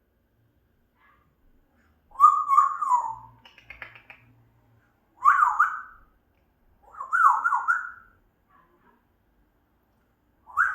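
African grey parrot giving four short whistled calls, each a quick run of pitch jumps up and down, with a brief raspy noise after the first.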